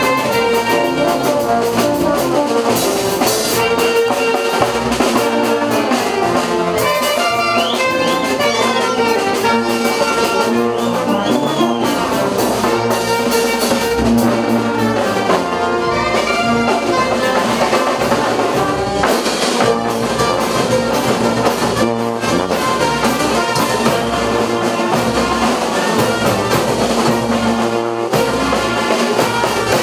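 Brass band music with trumpets and trombones, playing continuously at a steady level.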